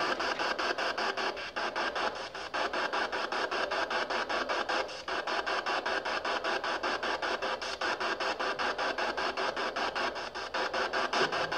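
PSB7 spirit box sweeping through radio frequencies: a steady stream of static chopped into rapid, even pulses.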